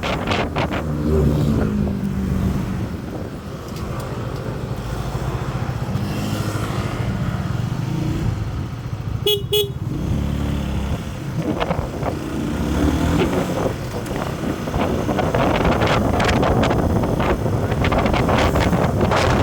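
Motor vehicle engine running on the road, its pitch rising and falling, with two short horn beeps about halfway through.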